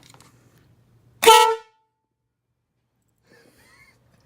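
Newly installed aftermarket air horns sounding one short test blast of about half a second, a little over a second in: a single steady, blaring horn tone.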